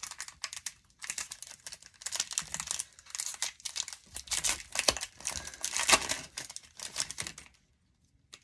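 The shiny foil wrapper of an Upper Deck Series One hockey card pack crinkling and tearing as it is ripped open by hand: a run of dense, irregular crackles that stops about a second before the end.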